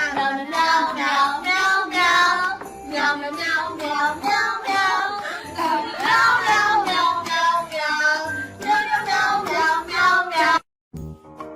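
A high, child-like voice singing over music, loud and continuous, cutting off abruptly about ten and a half seconds in.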